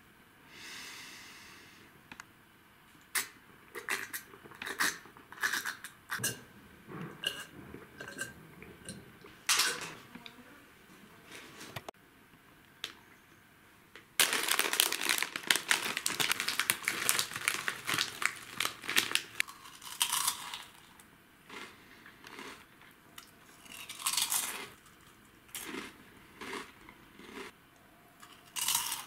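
Plastic snack packaging crinkling and being torn open, with scattered crackles. The densest, loudest crinkling comes in a stretch of several seconds in the middle.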